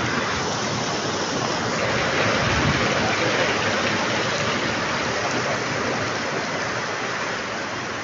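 Heavy rain pouring down, a steady dense rush of water noise, swelling a little a couple of seconds in.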